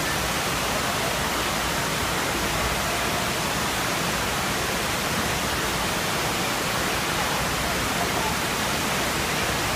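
Steady rush of water from the FlowRider surf simulator: a fast, thin sheet of pumped water pouring continuously up the padded ride surface as a constant, even hiss.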